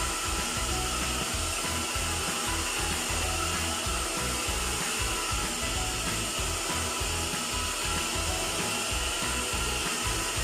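AOKAI hair dryer running steadily: a constant rush of air with a steady motor whine, over an irregular low rumble.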